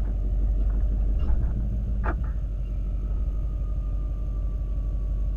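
Diesel pickup truck engine idling with a steady low rumble, with a single sharp click about two seconds in and a faint whine slowly falling in pitch after it.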